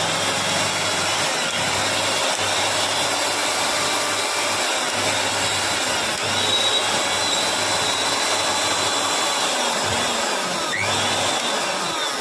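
Electric mixer grinder running at full speed, a steady high-speed motor whirr.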